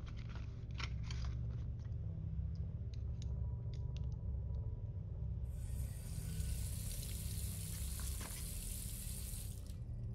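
A bathroom tap running into the sink for about four seconds, starting a little past halfway and shutting off abruptly, over a steady low hum. Before it come a few small clicks and knocks of things being handled in the cabinet.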